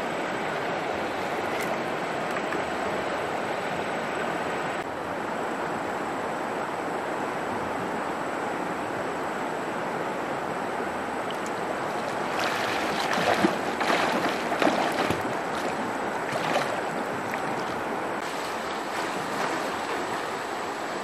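Steady rush of stream water, with a cluster of splashes in the water about two-thirds of the way through.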